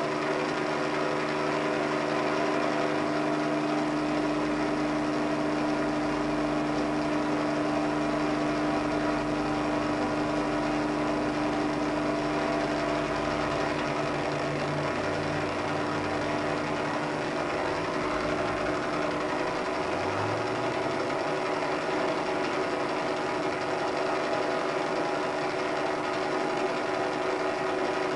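Helicopter engine and rotor noise heard from inside the cabin in flight: a steady, loud drone made up of several held pitches, with only slight shifts in the lowest notes partway through.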